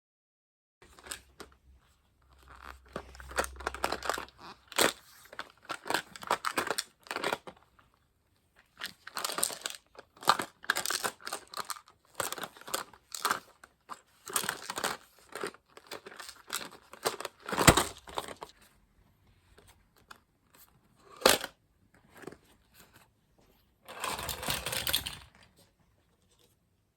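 Toys being handled by hand: irregular crinkling, rustling and small clicks in bouts, with a few sharper knocks such as one about 17 seconds in and another about 21 seconds in.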